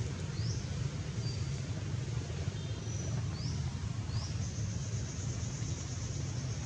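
Outdoor ambience: a steady low rumble, with a few short high chirps that rise in pitch and a thin high whine that comes in about halfway through.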